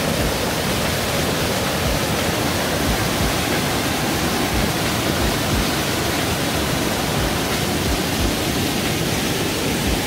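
Small waterfall cascading over boulders in a mountain stream: a steady rushing of water.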